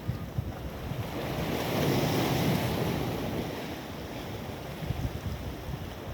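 Sea waves breaking and washing on the shore, one wave swelling to a peak about two seconds in and then fading, with wind buffeting the microphone.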